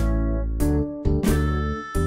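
Instrumental background music, a new note or chord struck about every two-thirds of a second and ringing on.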